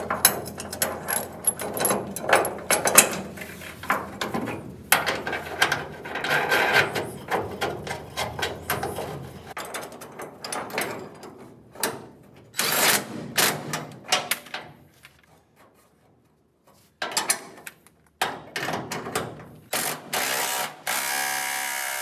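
DeWalt 20V cordless impact driver running in several short bursts, driving a bolt into a steel bracket, the last burst a steady whir of a couple of seconds near the end. Before it, about nine seconds of dense metallic clicking and clattering over a low hum.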